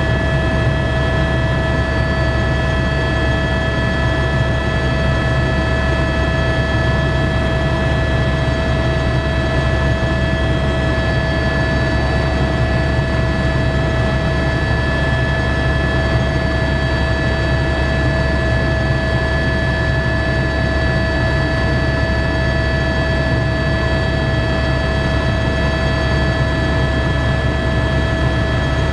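Helicopter cabin noise in steady cruise flight, heard from inside the cabin: a loud, even low drone from the rotor and engine, with several steady whining tones above it.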